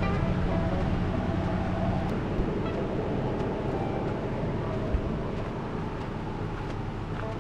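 A car running, with engine hum and road noise; the hum drops away about two seconds in and the noise slowly fades.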